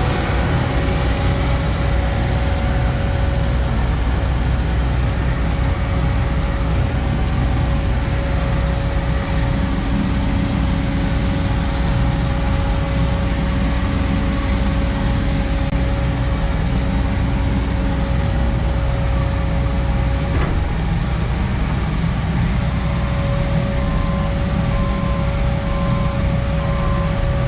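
Heavy diesel engine running steadily with a constant whine; the whine breaks off with a click about twenty seconds in and returns a few seconds later. A rapid pulsing beep comes in near the end.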